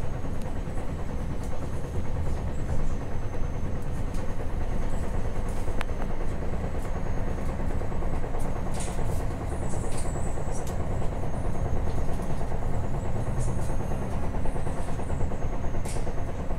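Moving passenger train heard from inside the carriage: a steady rumble of the wheels running on the rails, with a few brief high-pitched hisses or squeaks around the middle and near the end.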